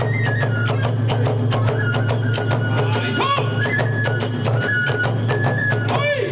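Kagura hayashi music: rapid, steady drum and percussion strokes under a fue flute melody that holds long notes and steps between pitches.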